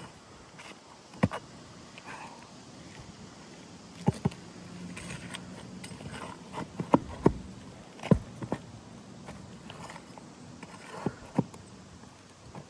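Scattered sharp knocks and taps, about eight in all and some in pairs, with faint scraping between, from hand tools prying up asphalt shingles on a roof.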